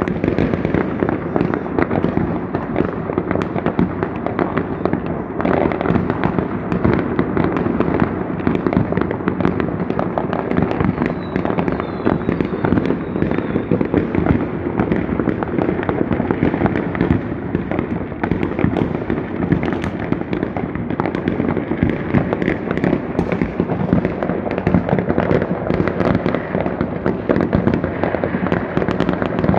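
Many fireworks going off at once from all around: a continuous, dense crackle of overlapping bangs and pops that never lets up.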